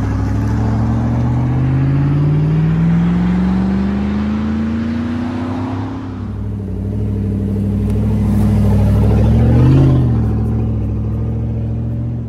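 Exhaust of a 2006 Chevrolet Tahoe's 5.3-litre V8 with the muffler deleted and the stock catalytic converters kept, accelerating away. The note climbs steadily, drops about halfway through, climbs again to a short rev near the end, then holds steady.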